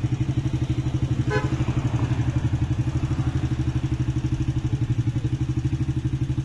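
A small engine idling steadily, a rapid even throb. About a second in, a brief high-pitched chirp rises over it.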